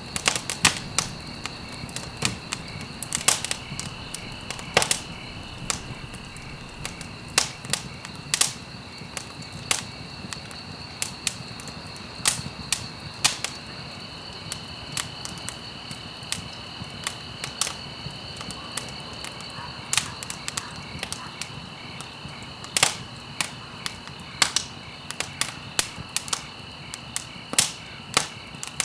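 Wood fire in a fireplace crackling, with irregular sharp pops and snaps several times a second over a low hiss of burning. A faint steady high-pitched tone runs underneath.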